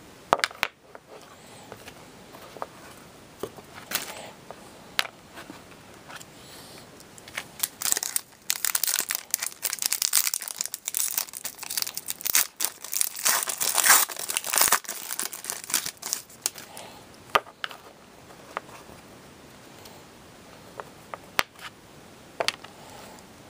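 Foil hockey card pack wrapper crinkling and tearing as it is opened, for several seconds in the middle, with scattered sharp clicks and taps of cards being handled before and after.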